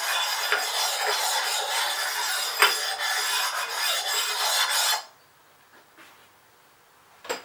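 Abrasive stone rubbed back and forth over the grooved metal underside of a milling-machine vise, a steady rasping that stones off the burrs left by scraping and flattens the surface. It stops abruptly about five seconds in, and a single sharp knock follows near the end.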